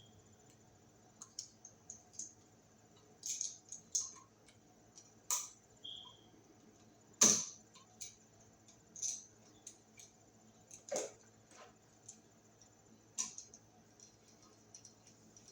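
Faint, scattered clicks and small scrapes of copper wire being bent into a loop and worked under the screw terminal of a new wall receptacle, the sharpest a little after halfway.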